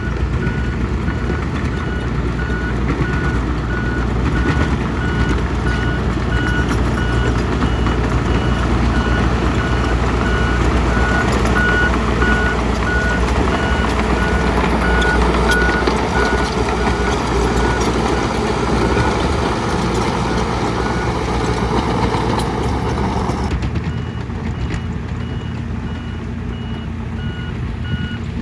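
Heavy earthmoving machine's diesel engine running under load, its reversing alarm beeping steadily about once a second. About 23 seconds in, the louder rushing part of the machine noise stops suddenly while the engine and the beeping go on.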